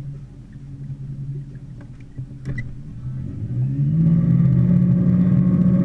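A small river boat's motor running steadily at low throttle, then opened up about two-thirds of the way through, its pitch rising and the sound getting clearly louder and holding there. A brief click comes about midway.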